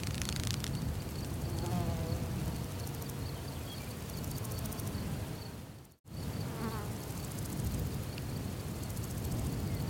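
Outdoor insect buzzing over a steady low rumble, with a faint high pulsing tone and a few small faint chirps. The sound cuts out for an instant about six seconds in.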